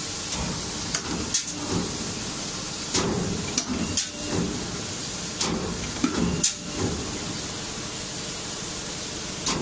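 DMCJX-502K CNC busbar cutting and punching machine at work on a copper busbar: a steady machine noise broken by short, irregular knocks and brief hisses, about eight in all.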